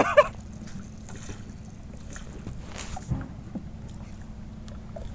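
Gentle water lapping and small splashes beside a small boat, with scattered faint ticks and one soft bump about three seconds in.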